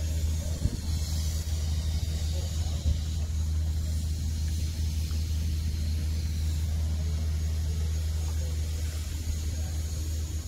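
Car engine idling steadily: a low, even rumble that holds without revving. Two brief knocks sound within the first three seconds.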